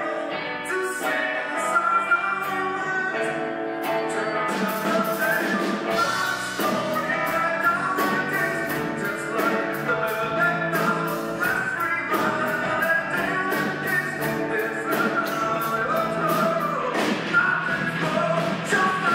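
Live rock band playing through a PA: electric guitars, drum kit and a singer. The drums come in about a second in, and the bass fills out the low end from about six seconds in.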